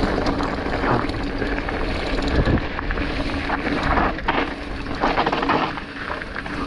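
Wind buffeting a rider-carried camera's microphone during a fast run down a rough trail, with scattered knocks and rattles.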